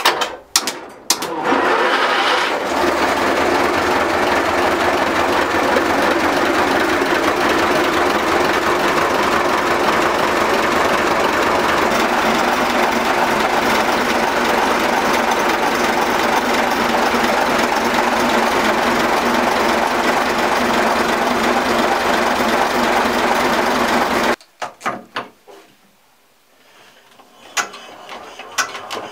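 A boat's diesel engine starting with a few clicks and catching about a second in, then running steadily and loud in the cramped engine room. The sound cuts off suddenly about five seconds before the end, leaving only faint clicks.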